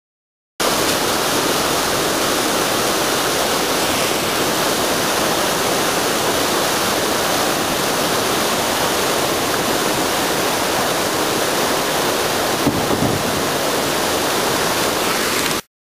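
Whitewater rapid rushing steadily, a loud unbroken churn of river water over rocks; it starts and cuts off abruptly.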